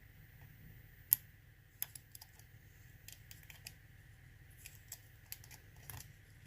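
Lock picking in a challenge lock: scattered small sharp metallic clicks and taps of the pick and tensioner working in the lock, with one louder click about a second in.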